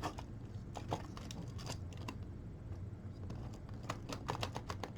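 Light plastic clicks and rattles of 3D-printed tank track links being handled and flexed at their hinge joints: scattered single clicks, then a quick run of them near the end.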